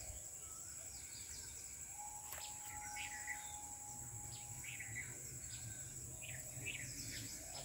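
Outdoor ambience: scattered short bird chirps over a steady high insect drone. A single steady tone is held for about three seconds in the middle.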